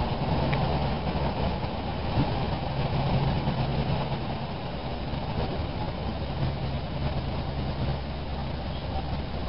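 Diesel train running, heard from inside the carriage: a steady low rumble with an engine hum that fades about halfway through and comes back.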